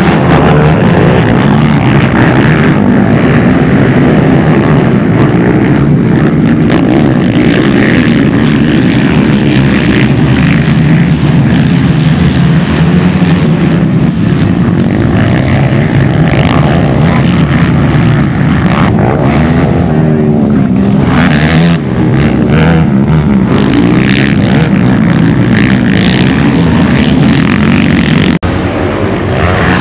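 Racing ATV quad engines running hard, several at once, with the engine note rising and falling as the riders work the throttle and shift. The sound breaks off abruptly near the end.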